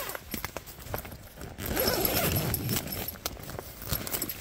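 Nylon tent door being opened by hand: fabric rustling and swishing, loudest about two seconds in, with scattered light clicks and taps.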